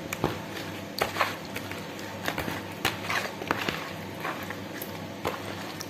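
Wet squelching and irregular sharp clicks of a hand squeezing and rubbing spice paste into whole catfish in a plastic basin.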